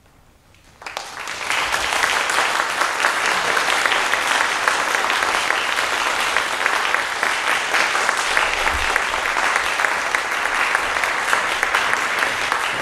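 Audience applause, starting about a second in, swelling quickly and then holding steady.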